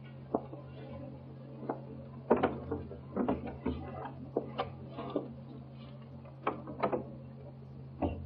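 Irregular knocks and clicks of footsteps and a door being worked as someone leaves a room, thickest a couple of seconds in, over the steady low hum of an early sound-film track.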